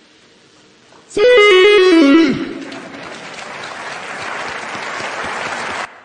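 Cristiano Ronaldo's "Siii" celebration shout, electronically altered so that its pitch falls in steps over about a second, followed by crowd applause and cheering that cuts off suddenly near the end.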